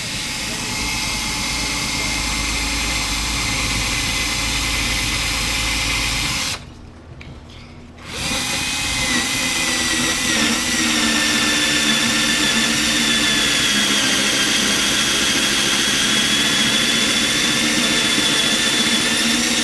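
Household electric drill turning a 1-inch hole saw through a thick wooden desktop, running under load with a steady whine. It stops for about a second and a half partway through, then starts again and runs on.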